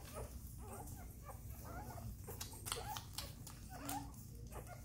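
Nine-day-old Portuguese Water Dog puppies squeaking and whimpering in short rising cries as they nurse, with scattered sharp clicks among the cries.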